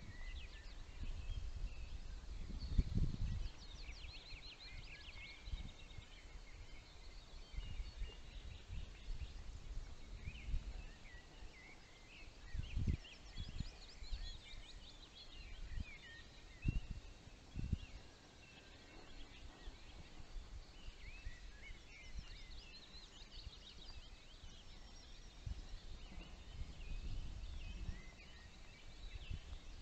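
Small birds singing: many short, high, quick trills and chirps overlapping throughout, with a few brief low thumps about 3, 13 and 17 seconds in.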